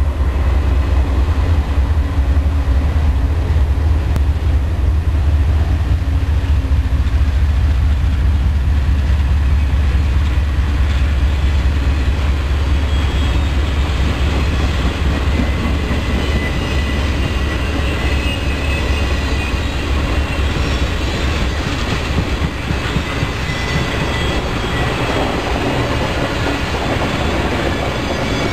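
Norfolk Southern diesel locomotives hauling a train of passenger cars past at track speed: a steady low engine rumble, with the rolling clatter and a faint squeal of the cars' wheels on the rails growing through the second half.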